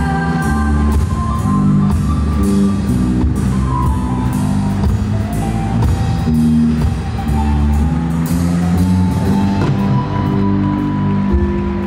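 Live rock band playing: a drum kit with steady cymbal strikes under electric guitar.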